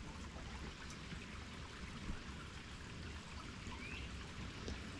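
A stream running steadily, a soft continuous trickling.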